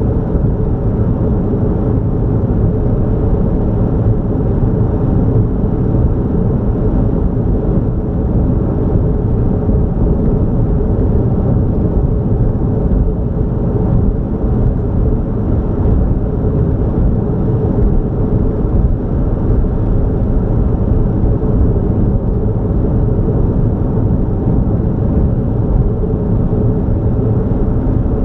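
Steady low rumble of a vehicle cruising along a highway: tyre and engine noise.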